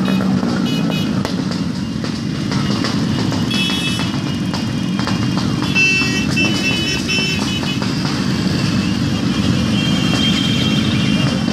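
A crowd of small street motorcycles running together at low speed, their engines blending into one dense, steady drone. Brief high-pitched tones come and go above it.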